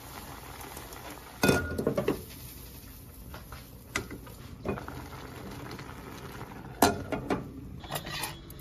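Cookware clatter: a glass lid set down on a pot with a short ring about a second and a half in, a few light knocks, and another sharp clank near the end, over a steady low hiss from the gas stove.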